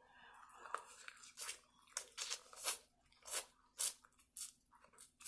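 Biting kernels off a buttered corn on the cob, close to the microphone: a string of short bites, about two a second, starting about a second and a half in.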